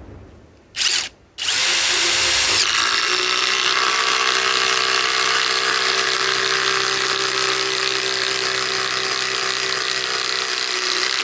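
Ridgid cordless impact driver driving a 5-inch ledger lock structural screw into wood. A short trigger burst comes first, then it spins up with a high whine and hammers steadily for about eight seconds before stopping suddenly.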